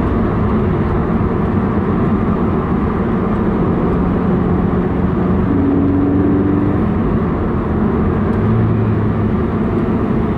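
Subaru BRZ's 2.0-litre flat-four running at a steady note while driving, with tyre and road noise, heard from inside the cabin.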